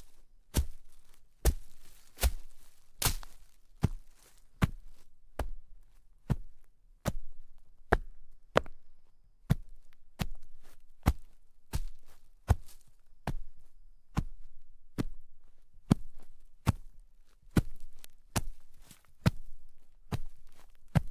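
Footsteps walking through shallow snow at a steady pace, about one step every 0.8 seconds, each footfall a brief sharp sound that fades quickly.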